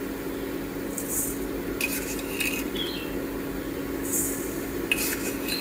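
Granulated sugar poured onto soft steamed sweet potato slices in a stainless steel bowl: a soft granular hiss that comes in a few short spurts. A steady low hum runs underneath.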